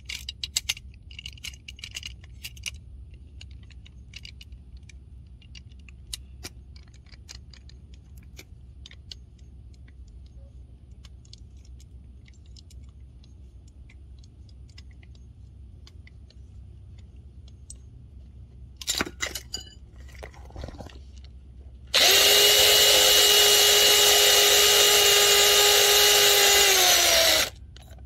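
Light metallic clicks and tool handling over a low steady hum, then near the end a power tool's motor runs at a steady speed for about five seconds and winds down as it stops.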